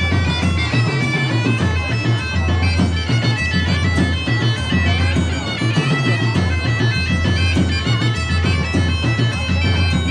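Live medieval-market band playing bagpipes: a loud, reedy melody of held notes stepping up and down over a steady low drone.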